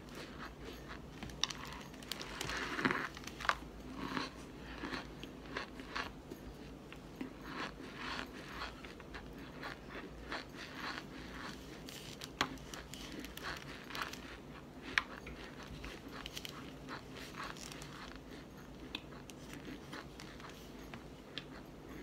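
Biting and chewing a packed cornstarch block: irregular soft crunches and crackles, with a louder run of crunching about three seconds in.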